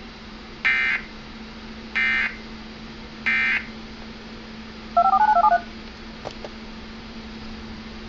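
Emergency Alert System end-of-message data bursts played through a computer's speakers: three short buzzy digital bursts about a second apart, closing the severe thunderstorm warning. About five seconds in comes a quick string of touch-tone (DTMF) beeps, then a click, over a faint steady hum.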